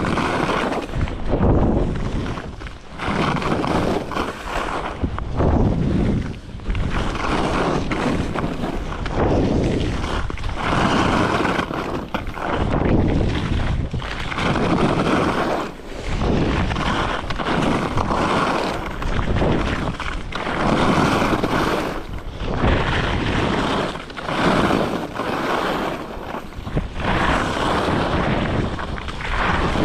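Skis carving turns on a packed-snow piste, a scraping hiss that swells and fades about every one and a half to two seconds with each turn, mixed with wind rushing over the microphone.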